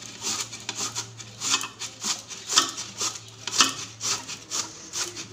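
A raw peeled potato rubbed up and down the coarse side of a stainless-steel hand grater, in regular rasping strokes about two a second.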